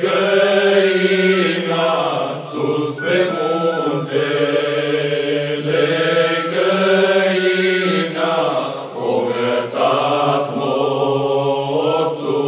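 Men's folk ensemble singing a Romanian colind (Christmas carol) in long, drawn-out notes, with instrumental backing.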